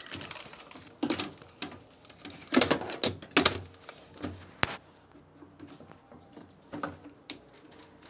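Hands handling the plastic control-panel housing and wiring of an LG washing machine: irregular clicks and knocks of plastic, loudest in a few knocks about three seconds in.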